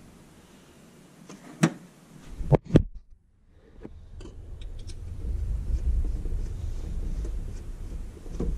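A few sharp clicks of metal hardware being handled while a catch can is fitted in an engine bay, then a low rumble on the microphone that builds and holds from about halfway through.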